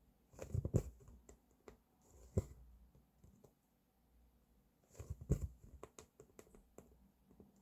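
Cross-stitch needle and thread worked through fabric: clusters of soft clicks and rustles as the needle pokes through and the thread is pulled, coming about a second in, again around two and a half seconds, and in a busier run from about five seconds.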